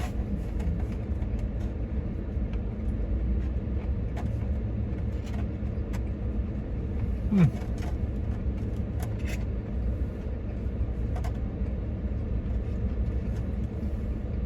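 Steady low rumble of a vehicle engine running, with a few faint clicks scattered through it. A brief low falling sound comes about seven and a half seconds in.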